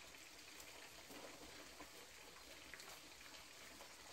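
Faint sizzling and crackling of meat grilling over charcoal.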